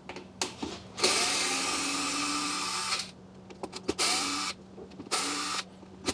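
Cordless drill/driver running in bursts, backing screws out of the washer's drive mechanism: one run of about two seconds, then several shorter runs with small clicks between them.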